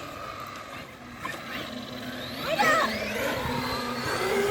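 Electric RC car motor whining, its pitch rising and falling as the car speeds up and slows, loudest about two and a half seconds in.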